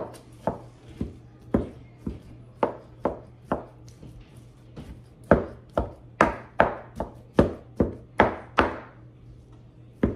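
Knife chopping cooked chicken on a plastic cutting board: a run of quick chops about two a second, with a short pause partway through and the loudest chops in the second half.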